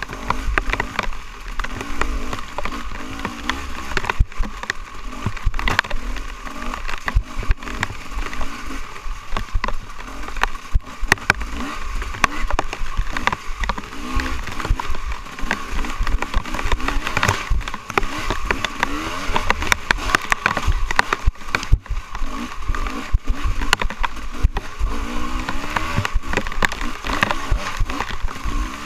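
Dirt bike engine running at speed over a rough trail, its pitch rising and falling with the throttle. Frequent sharp knocks and rattles from the bumps run through it.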